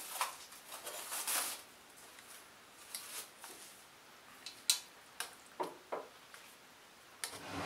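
Metal tongs clicking and tapping against a stainless steel steamer tray and ceramic plates as steamed dumplings are lifted out, a handful of sharp separate clicks, with a soft rustle of movement in the first second or so.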